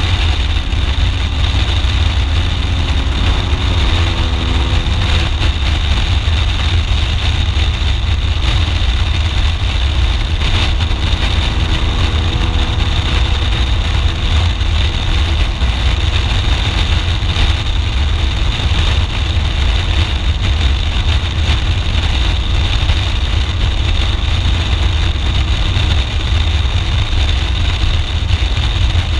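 Wind rushing over a camera microphone on a BMW R1200GS Adventure motorcycle at road speed, with the flat-twin boxer engine's steady running note underneath.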